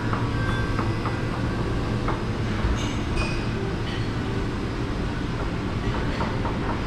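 Busy buffet restaurant ambience: a steady low hum with scattered light clinks of plates and utensils.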